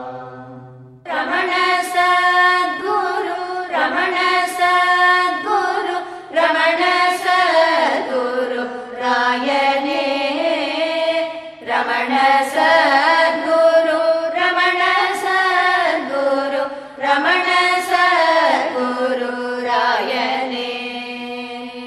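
Background Carnatic-style devotional singing: one voice sings long, ornamented melodic phrases over a steady drone, with brief pauses between phrases.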